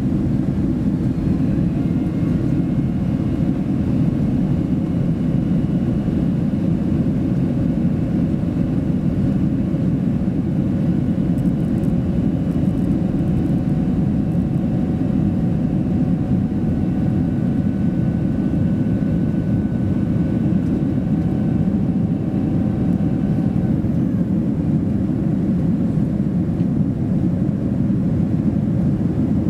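Steady cabin roar of a Boeing 767-300 in flight, engine and airflow noise heard from a window seat, deep and even. Faint steady whines ride above it and fade out about three-quarters of the way through.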